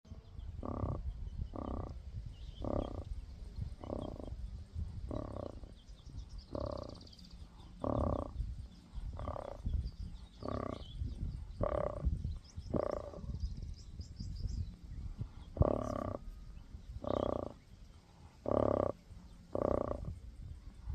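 Dog snoring: a short, nasal, pitched snore about once a second, with a pause of a couple of seconds midway, over a steady low rumble.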